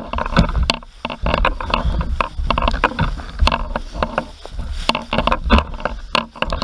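Footsteps and knocks from a hand-held camera while walking, irregular and several a second, over a low rumble of wind on the microphone.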